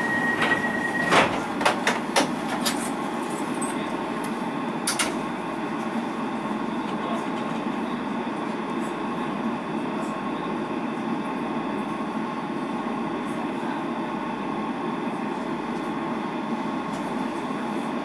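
Inside a DLR B2007 Stock railcar: the steady high door-closing warning tone stops about a second in, and the doors shut with a few knocks. Then comes the steady hum of the stationary or slowly moving train's equipment.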